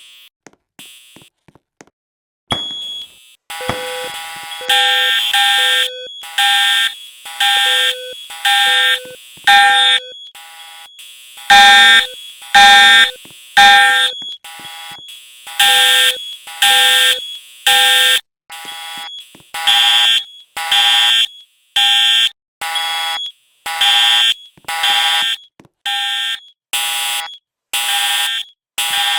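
Fire alarms sounding: loud, repeating pitched beeps about one a second that start about two and a half seconds in. The beeps mix several different pitches that vary from beep to beep, as if more than one alarm is going off at once.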